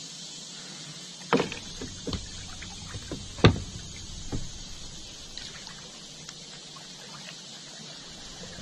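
Kayak paddling: a few sharp knocks and splashes as the double-bladed paddle works the water and bumps the kayak, over a steady high hiss. The loudest knock comes about three and a half seconds in.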